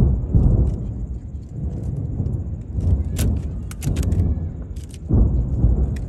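Fireworks bursting overhead: a run of deep booms one after another, with a burst of sharp crackles about halfway through.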